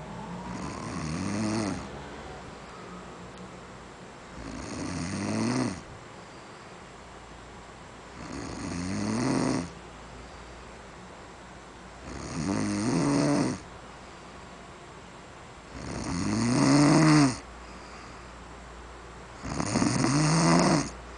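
A sleeper snoring: six snores about every four seconds, each swelling in loudness with a pitch that rises and falls, then stopping abruptly, with quieter breathing between.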